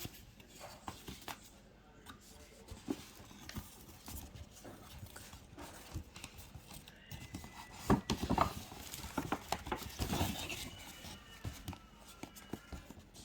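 Sunglasses packaging being handled by hand, with rustling paper and cardboard and scattered clicks and taps. The sound is busiest and loudest in a cluster of sharp taps about eight to ten seconds in.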